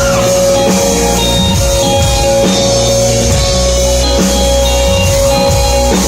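A live rock band playing an instrumental passage: drum kit, electric guitar and bass over steady held notes, with no singing.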